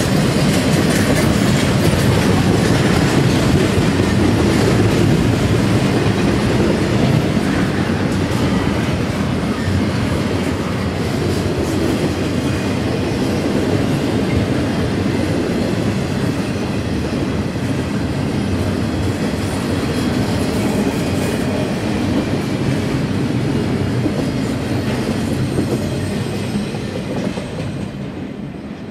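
Double-stack intermodal train's well cars rolling past a grade crossing, a steady loud rumble and clatter of wheels on rail. The sound falls away over the last few seconds as the end of the train passes.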